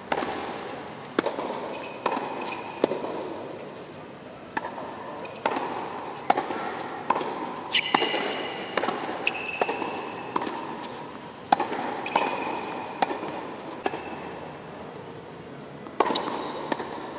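Tennis balls struck by rackets and bouncing on a hard court during a practice rally: sharp pops about once a second, each with a short echo, and a few brief high squeaks of tennis shoes on the court.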